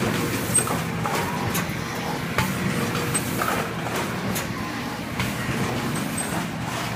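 Heidelberg SBD cylinder press running: a steady mechanical hum with its mechanism clacking about once a second as it cycles.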